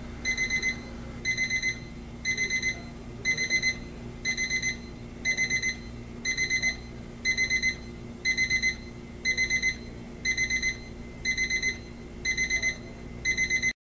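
Westclox BBA704 Big Ben 1949 reproduction alarm clock's electronic beep alarm going off. It gives quick groups of about four high-pitched beeps, repeating about once a second, and cuts off abruptly near the end.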